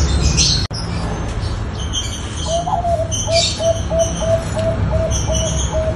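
Zebra dove (Bangkok perkutut) cooing: a run of short, soft, evenly spaced notes, about three a second, starting about halfway through. Small birds chirp high above it, and a steady low hum runs underneath.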